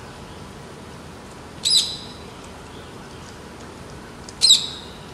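Rose-ringed parakeet giving two short, high-pitched calls, about two and a half seconds apart.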